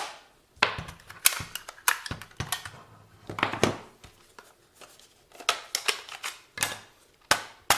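Irregular sharp clicks and knocks of a plastic handheld RC car transmitter being handled, about ten in all, with short quiet gaps between.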